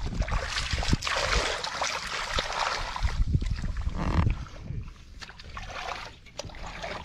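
Hands sloshing and splashing through shallow muddy water while groping for fish in the mud. It is louder for the first four seconds or so, then quieter, with small splashes.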